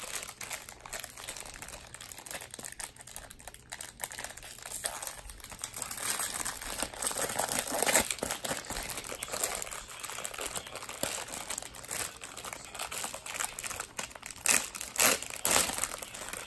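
Clear plastic packaging bag crinkling and rustling as it is handled, irregular and uneven, loudest around the middle and again near the end.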